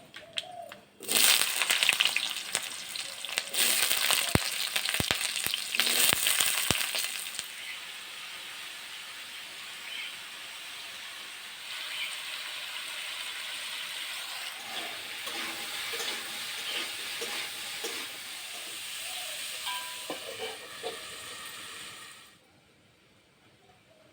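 Food frying in hot oil in a pan: a loud sizzle starts about a second in, with a few sharp clicks, then settles into a steady, quieter sizzle that cuts off suddenly near the end.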